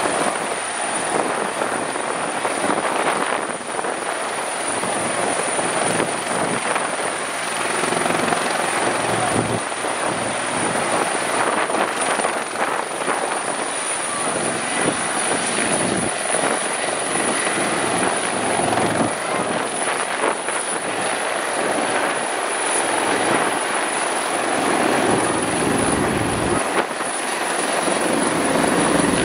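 Bell 412EPI twin-turbine helicopter with its four-blade main rotor running steadily at take-off power as it lifts off and climbs away.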